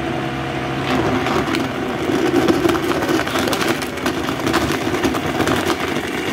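Vitamix E310 blender motor running at speed, its blades chopping leafy greens, apples, cucumbers and ice in water, with many sharp knocks of pieces against the container. The sound changes and grows a little louder about a second in.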